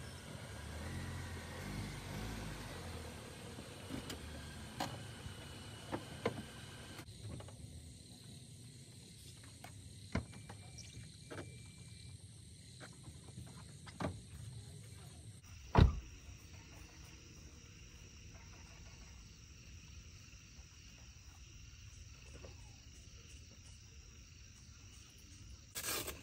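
Suzuki Jimny running low and quietly for the first several seconds, then a few scattered clicks and knocks, the loudest a single sharp knock about 16 seconds in. Insects chirp steadily in the background.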